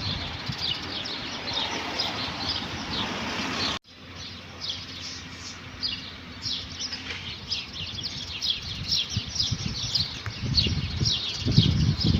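Birds chirping: many short, high chirps overlapping continuously. The sound cuts out abruptly about four seconds in and comes straight back, and low fluttering noise comes and goes at the start and near the end.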